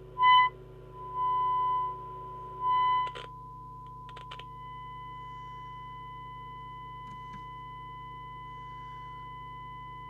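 Steady sine-wave test tone from the President Walker ASC CB radio's receiver as it demodulates the signal generator's test signal. It comes in three short bursts of varying loudness while the volume is adjusted, then holds steady and quieter from about four and a half seconds in. A low hum runs underneath, and a few faint clicks come about three to four seconds in.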